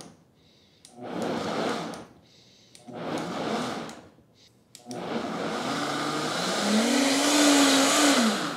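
VitaMix blender pulsed twice in short bursts of about a second each, then run continuously, its motor pitch rising as it speeds up and dropping as it winds down near the end. It is blending cooked broccoli florets and a little water into a thick purée.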